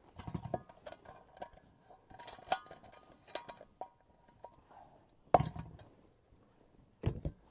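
Metal camping pot being handled: a run of light clinks and knocks with short ringing metal tones in the first few seconds, then two louder knocks near the end.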